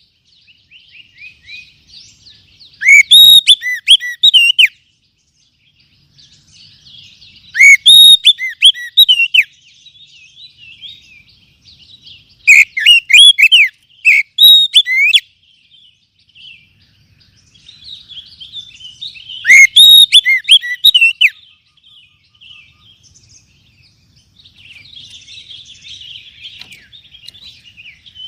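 Oriental magpie-robin (kacer) singing: four loud bursts of rough, sweeping calls a few seconds apart, with quieter twittering between them. It is a recorded fighting-style song used to provoke caged kacer into answering.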